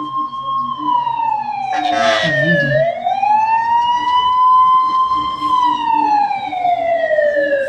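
Fire engine siren wailing, sliding slowly down and back up in pitch, about one full sweep every five seconds. A short burst of noise cuts in about two seconds in.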